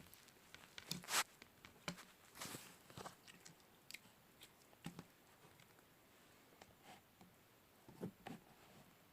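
Slime being squished and poked by hand: faint, scattered soft clicks and crackles, the loudest about a second in.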